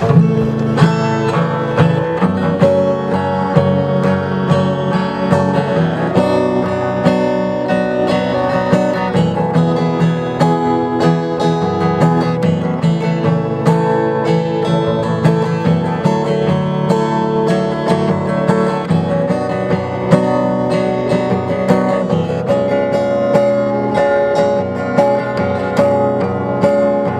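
Acoustic guitar playing a steady run of plucked and strummed chords as the introduction to a slow ballad, with no voice.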